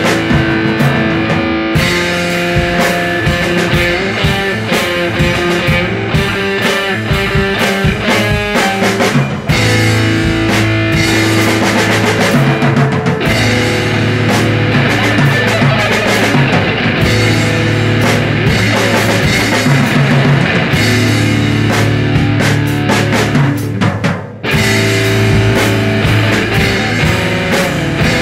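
Improvised garage rock played loud on guitar and drum kit, with two brief breaks in the playing.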